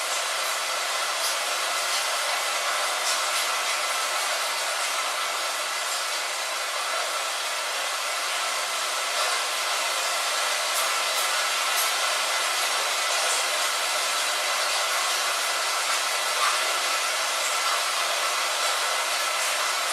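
Steady light rain: a dense, even hiss with faint scattered ticks of individual drops.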